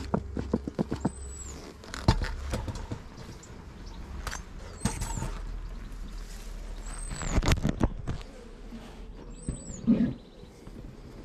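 Bellows bee smoker being pumped at a hive entrance, roughly every two seconds: each squeeze gives a short high squeak and a puff of air, among sharp clicks and knocks from handling.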